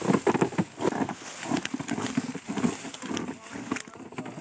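Dry sugarcane leaves crunching and rustling in quick, irregular bursts under the hooves of a young buffalo and the wheels of the cart it pulls, loaded with sugarcane.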